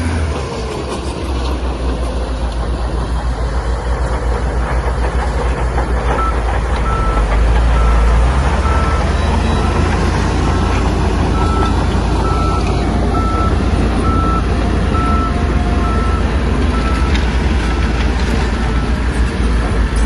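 Heavy earthmoving machine's diesel engine running under load, with a reversing alarm beeping steadily at about three beeps every two seconds from about six seconds in.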